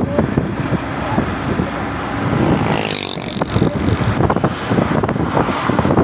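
Moving road vehicle driving along a paved road: steady engine and road noise, with wind buffeting and crackling on the microphone, and a short hiss that swells about halfway through.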